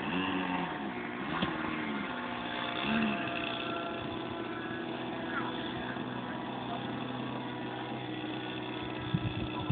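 Small RC model-aircraft engine running steadily at a constant speed, with faint voices in the first few seconds.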